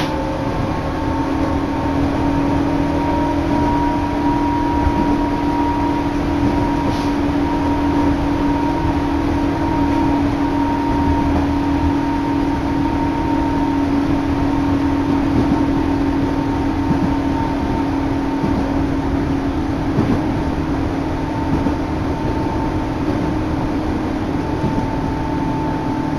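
Electric commuter train running at steady speed, heard from inside the carriage: continuous rumble and rail noise under a steady hum that holds its pitch.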